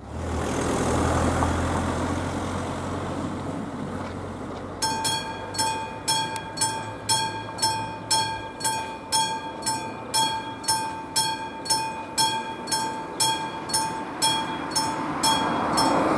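Level-crossing warning bell, the classic mechanical bell of an AŽD 71 crossing signal, starts ringing about five seconds in and keeps striking steadily at about two strokes a second, each stroke with a bright ringing tone. Before it, a low rumble fades away.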